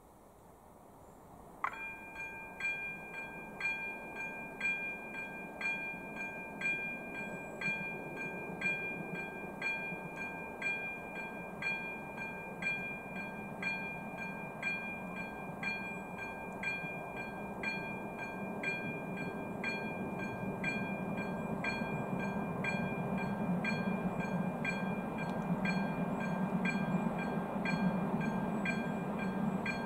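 AŽD ZV-02 electronic level-crossing bell starts up about two seconds in and rings in a steady, regular series of strokes: the crossing warning has switched on for an approaching train. Under it, a low rumble rises toward the end as the train draws near.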